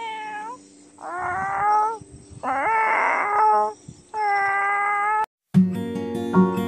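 Cat meows, four drawn-out calls, some rising in pitch at the start. About five and a half seconds in, after a brief silence, acoustic guitar music starts.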